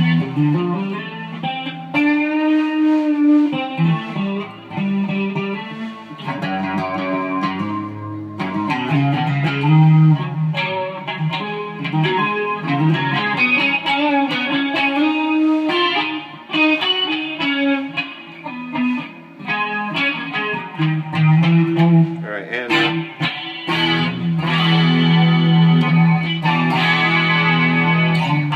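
Electric guitar (a KH-1 custom) played clean through a chorus effect: a continuous run of notes and chords, with a few bent notes a few seconds in.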